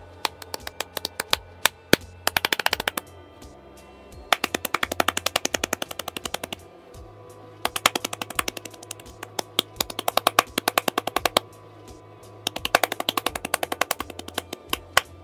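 Hand claps: scattered single claps, then three fast runs of about ten claps a second, each a couple of seconds long.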